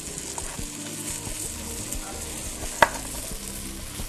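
Pieces of lamb sizzling steadily as they brown in hot vegetable oil in a pan, with one sharp click a little under three seconds in.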